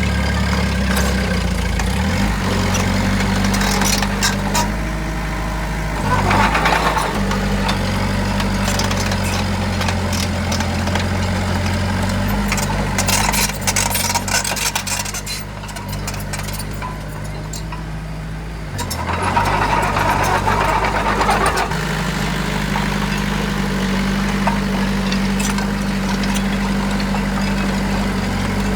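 Heavy construction machine's diesel engine running steadily. It grows louder briefly about six seconds in and again around twenty seconds, and drops back in between, with some scattered clatter.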